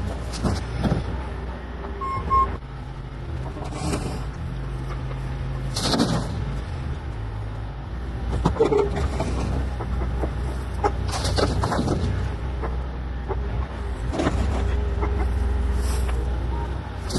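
Bobcat E40 compact excavator's diesel engine running steadily under load, with irregular clanks and scrapes from the bucket digging into the soil and rocks of a bank.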